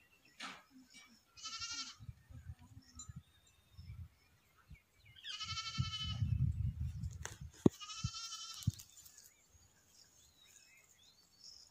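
Goats bleating three times: a short bleat, then two longer, wavering bleats.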